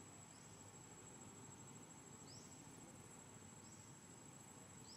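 Faint outdoor insect ambience: a steady high-pitched whine, with four short rising chirps spaced one to two seconds apart.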